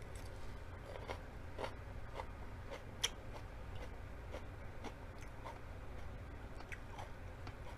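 Close-up chewing of a raw mini sweet pepper: crisp crunches at irregular intervals, with one sharper crunch about three seconds in.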